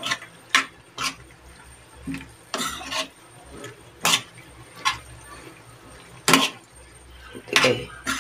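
Spatula knocking and scraping against a frying pan as macaroni is stirred: irregular sharp clacks about once or twice a second, with a couple of longer scrapes.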